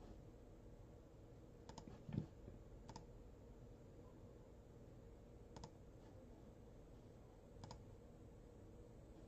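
Near silence with a low hum, broken by a few faint, sharp clicks spread out over several seconds and a soft knock about two seconds in.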